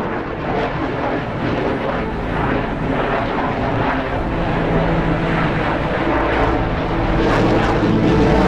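MiG-29 fighter's twin jet engines, a dense roar with a crackling rasp that grows slowly louder as the aircraft manoeuvres overhead.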